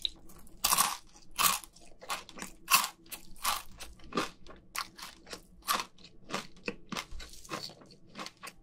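Chewing of crispy fried KFC chicken skin: a steady run of crunches, two or three a second.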